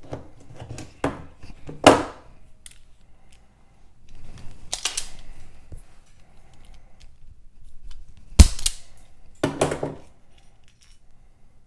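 Hand tools working on battery leads: a wire stripper and crimper snapping and clicking, about five sharp snaps with handling noise between, the loudest about eight seconds in.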